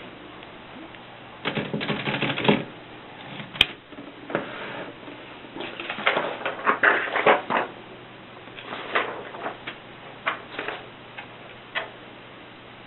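Vintage Voss typewriter being typed on: quick runs of key strikes in a few bursts, separated by pauses and scattered single keystrokes.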